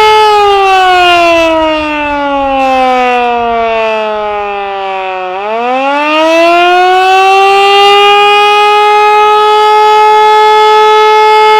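Canadian Model 2 outdoor warning siren sounding the attack signal. Its steady tone slides down in pitch for about five seconds, then winds back up and holds high again.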